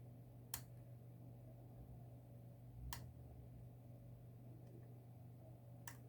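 Three sharp small clicks a few seconds apart, from lock picks and tension tool working inside a Tann lever lock, over a steady low hum.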